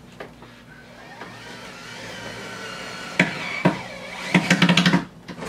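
DeWalt gyroscopic electric screwdriver driving a Phillips screw into a drawer slide: the motor's whine rises for a couple of seconds, then come two sharp knocks and a rapid rattling chatter as the bit skips in the hard-to-drive Phillips head.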